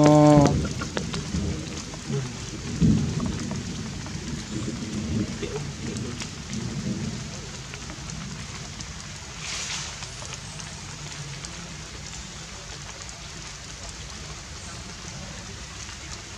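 Steady light rain falling on leaves and foliage, a constant hiss. Low rumbling sits under it, loudest in the first few seconds and fading out by about halfway.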